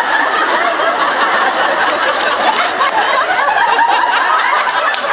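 Large audience laughing loudly, many voices at once in a packed hall, with a few sharp claps near the end.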